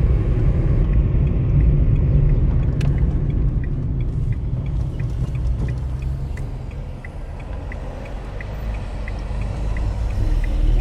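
Car cabin rumble while driving: a steady low road-and-engine drone that eases a little midway and builds again near the end, with a faint regular ticking about three times a second.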